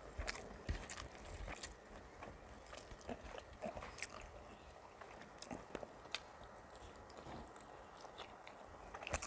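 Close-miked chewing of a mouthful of rice and Bengali fried vegetables, with irregular crisp clicks and wet mouth smacks.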